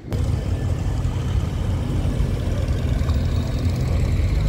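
Car engines of a slow-moving queue of old cars, a steady low rumble.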